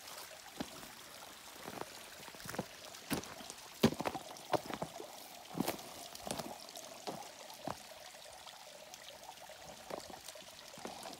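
Thin stream of water trickling down a mossy rock face, with a steady splashing hiss and irregular sharp drips and splashes.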